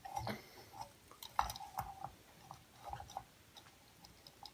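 Faint handling noise: scattered small clicks and rustles from a ceiling fan light kit being held up to the fan's switch housing, with its wires tucked in.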